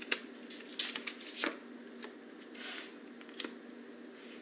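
Tarot cards being handled, shuffled and laid out: a few sharp card snaps and a brief swish of card sliding against card, over a faint steady hum.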